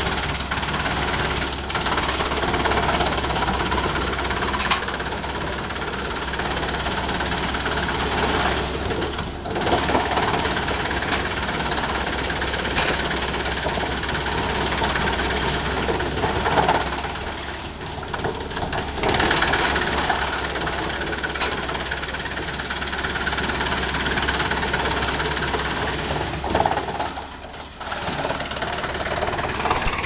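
2012 Lippel forest wood chipper, driven by a tractor, running and chipping logs fed in by hand, over the drone of the tractor engine. The noise eases briefly three times.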